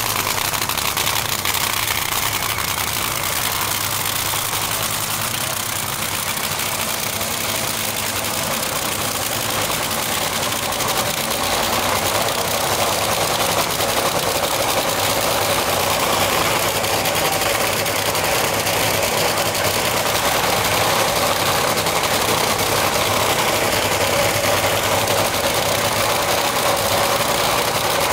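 Top Fuel dragster's supercharged nitromethane V8 idling steadily, loud and rough, getting a little louder about a third of the way in.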